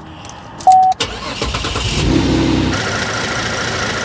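A short beep, then the Holden VF Commodore SV6's 3.6-litre V6 is cranked by the starter for about a second and a half, catches, and settles into a steady idle. The engine is being run to circulate a freshly added engine oil flush before the oil is drained.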